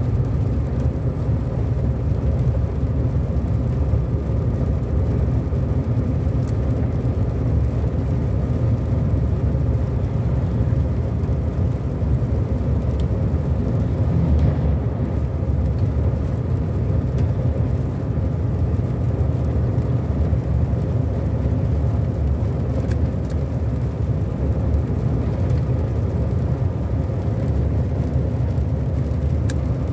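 Steady driving noise heard from inside a car: engine hum and tyres on a wet road surface. A truck passes close alongside around the middle.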